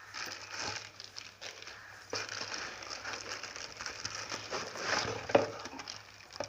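Plastic packaging crinkling and rustling while the mixer-grinder jars are handled, with scattered light clicks and one sharper knock about five seconds in.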